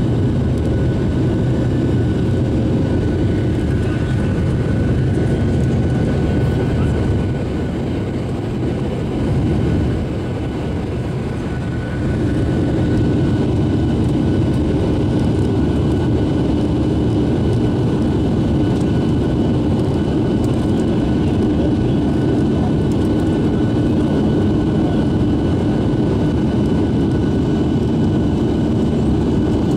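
Airbus A321 jet engine and airflow noise heard inside the cabin over the wing during the climb after takeoff: a steady roar with faint high whining tones. It dips slightly for a few seconds about a third of the way in, then comes back with a stronger low hum.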